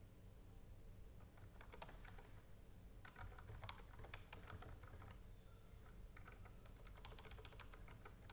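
Faint typing on a computer keyboard, keystrokes coming in short runs with brief pauses between them.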